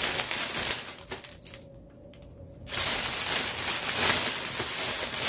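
Clear cellophane gift-basket wrap crinkling and crackling as it is handled and pulled open by hand, with a quieter lull of about a second in the middle.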